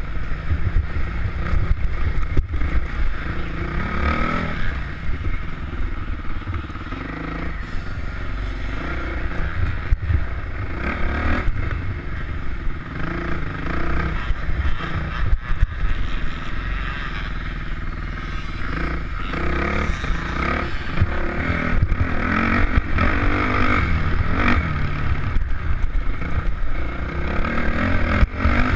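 Dirt bike engine heard from on board, revving up and easing off again and again while riding, with low wind rumble on the microphone.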